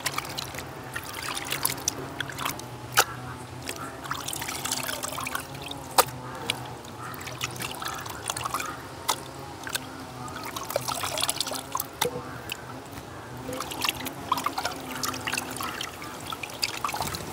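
Water trickling and splashing as cut pieces of goat meat are washed by hand in a bowl, with scattered sharp knocks, the loudest three about 3, 6 and 12 seconds in.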